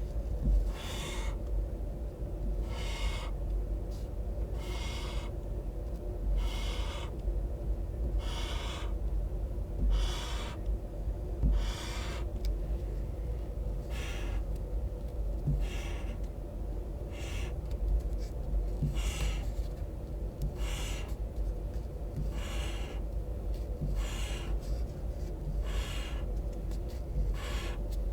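Highlighter felt tip drawn across paper in short swishing strokes, one about every one and a half to two seconds, over a steady low hum.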